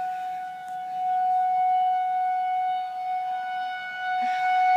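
Outdoor tornado warning siren sounding one loud, steady tone, swelling louder about a second in and again near the end.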